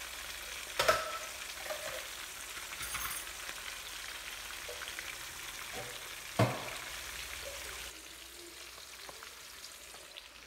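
Oil sizzling steadily in a frying pan as sliced onions, garlic and thyme fry, with two sharp knocks, one about a second in and one past six seconds. The sizzle grows quieter over the last couple of seconds.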